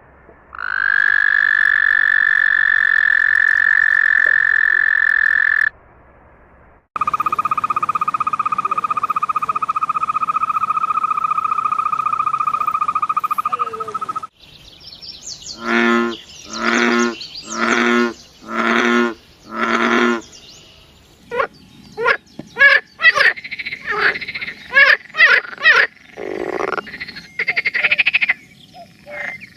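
A run of different frog calls, cut one after another: a long, steady, high trill, then a lower steady trill, then five evenly spaced croaks about a second apart, then a burst of irregular, overlapping calls.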